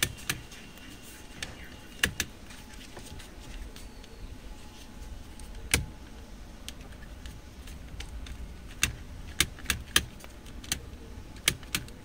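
Volkswagen Vento's steering-column light stalk and combination switch clicking as the stalk is flicked between positions, sharp plastic clicks at irregular intervals with a quicker run near the end. The switch is being tested after cleaning, and the high beam still does not work.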